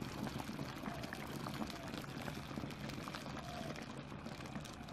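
Dry ice boiling in warm soapy water in a tall tube: a steady bubbling with many small crackling pops as fog-filled foam builds up and spills over.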